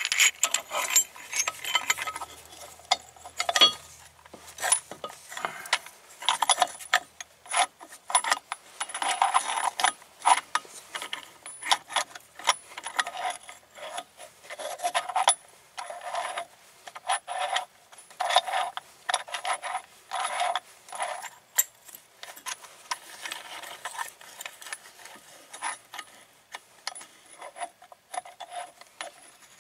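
Hand tools working on a minivan's brake parts: a long, uneven run of short metallic clicks and clinks, several a second.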